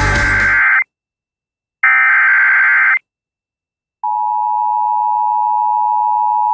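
Emergency Alert System broadcast tones: the screeching SAME data header, with one burst cutting off under a second in and another lasting about a second from about two seconds in. About four seconds in, the steady two-tone EAS attention signal begins.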